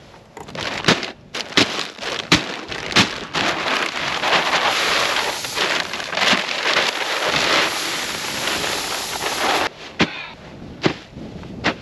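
Shelled corn poured from a feed bag onto a pile on the ground: a steady, rain-like rattle of kernels for about six seconds that stops suddenly. Before it come four sharp knocks, and a few more knocks near the end.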